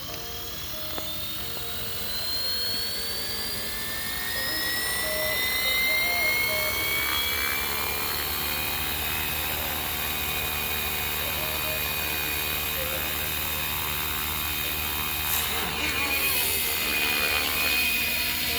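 Electric FlyWing FW450 RC helicopter spooling up: the motor and rotor whine rises steadily in pitch over the first several seconds, then holds as a steady whine. The helicopter lifts off into a hover near the end.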